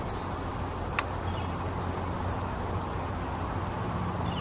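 Steady outdoor background noise with a low hum, broken by one sharp click about a second in and a couple of faint, short high chirps.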